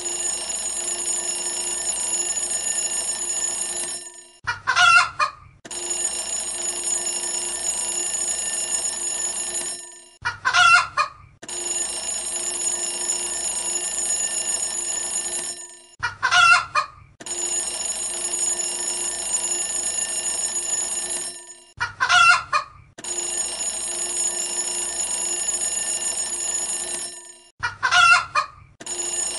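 Countdown-timer alarm: a short chicken call of about a second, then about four seconds of continuous electric bell ringing, the pair repeating about every six seconds.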